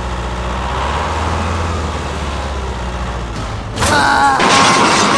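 Steady low engine rumble from an RC truck, then about four seconds in a sudden loud hiss with a wavering tone over it.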